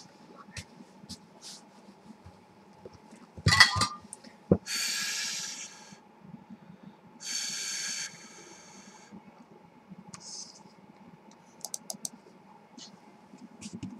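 Household handling noises: a clatter of knocks, then two short rushing hisses, and a few sharp computer mouse clicks near the end, over a faint steady electrical hum.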